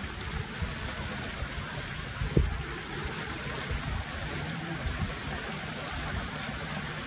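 Water gushing steadily out of a concrete outlet into a foaming pool and churning around a mesh fishing net held in the flow. One brief thump comes about two and a half seconds in.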